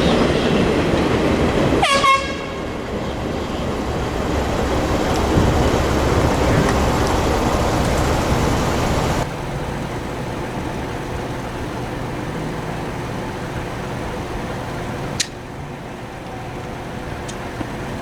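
Diesel locomotive horn sounding for about two seconds, then the rumble of the train rolling past. The rumble drops away abruptly about nine seconds in to a quieter steady background, with a single sharp click near the end.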